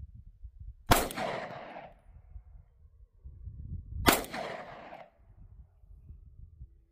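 Two pistol shots about three seconds apart, a semi-automatic handgun firing tracer rounds. Each crack trails off over about a second.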